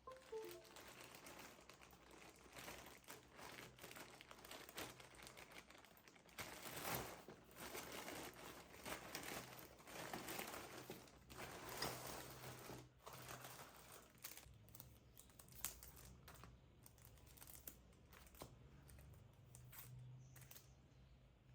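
Faint crinkling and rustling of wrapping material being handled, in short irregular bursts that thin out over the last several seconds.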